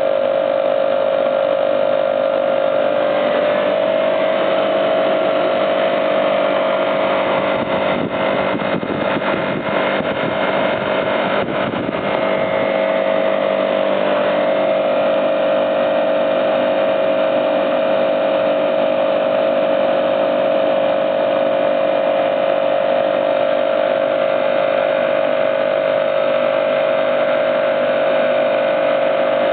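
A home-built air compressor, made from two air-conditioner compressors driven by three-phase motors, running with a steady, even hum. About eight seconds in it turns rougher and noisier for a few seconds, with a few clicks.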